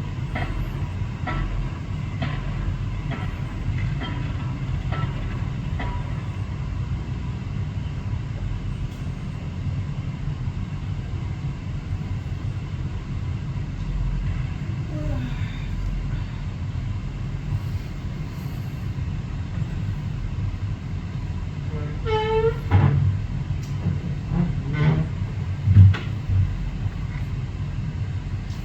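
Machinery boring a foundation hole: a steady low engine drone with regular knocks about once a second. About three-quarters of the way through come a few louder calls, one with falling pitch.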